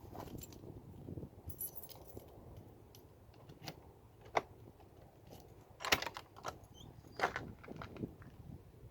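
Small metal objects, such as keys, lock parts or picks, handled by hand: scattered light clinks and rattles, with three sharper clinks in the second half.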